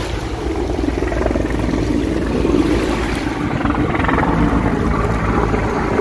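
Small waves washing up onto a pebble beach with wind buffeting the microphone, under the steady low drone of a helicopter flying overhead.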